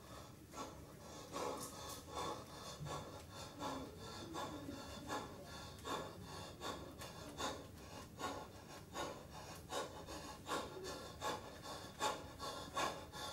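A man breathing hard in short, quick breaths, about two a second, getting louder near the end.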